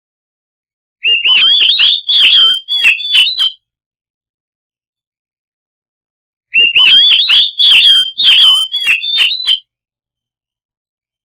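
Oriental magpie-robin (kacer) singing loud, fast phrases of whistles and sharp notes, twice, each about three seconds long with a silent gap between. This is a 'pancingan' bait song, played to prompt a silent kacer to answer.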